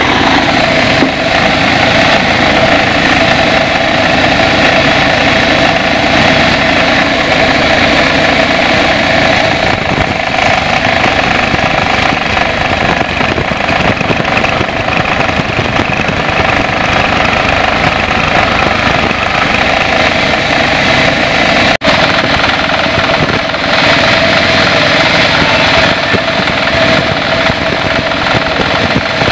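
Band sawmill running with a steady engine drone as it saws an old acacia beam. The sound drops out for an instant about 22 seconds in.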